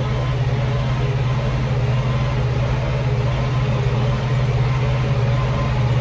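Tractor engine running steadily at an even speed, with a constant low hum.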